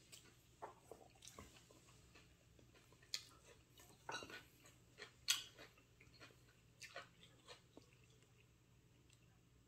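Faint close-up chewing and mouth sounds of a person eating fried chicken, with scattered wet smacks and sharp clicks. A short puff of breath comes about four seconds in.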